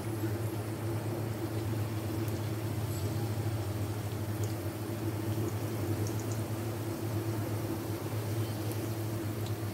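Chicken patties shallow-frying in hot oil: a steady sizzle and bubbling, over a steady low hum.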